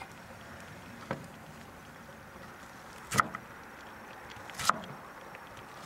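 Cucumber sliced with a Finnish knife on a wooden cutting board: three cuts, each ending in a sharp knock of the blade on the board, about a second, three seconds and four and a half seconds in, the last two louder.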